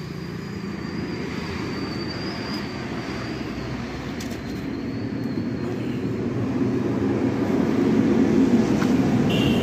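A motor vehicle's engine running, getting steadily louder over several seconds.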